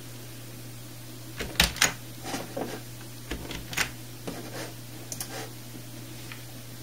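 A run of irregular light clicks and knocks over a steady low hum, the two sharpest about a second and a half in.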